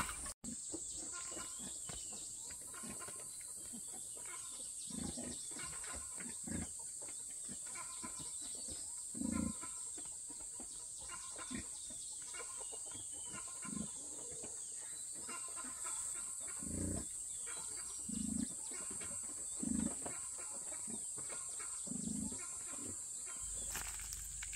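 Rural outdoor background: a steady high-pitched hum, with soft low thumps every second or two that grow more distinct after about nine seconds.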